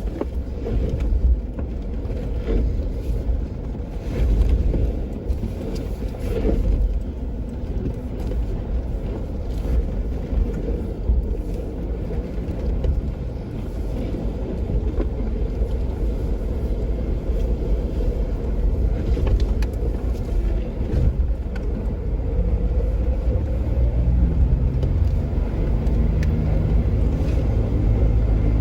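Jeep Wrangler driving on a dirt backcountry trail: a steady low rumble of engine and tyres, with the engine note coming through more clearly over the last few seconds.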